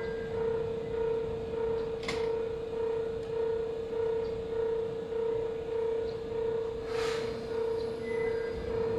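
Japanese railway level-crossing warning bell ringing steadily, an electronic tone repeating a little under twice a second, the signal that a train is approaching and the crossing is closed. A brief click comes about two seconds in and a short hiss around seven seconds.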